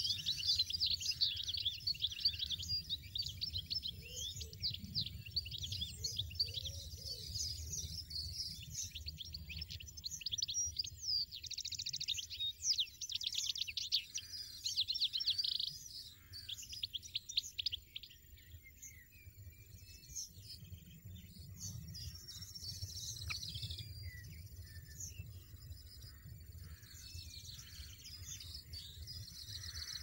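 European goldfinch nestlings' rapid, high begging chirps while the adult feeds them at the nest. The chirping is dense for the first half and thins to scattered calls after about 16 seconds.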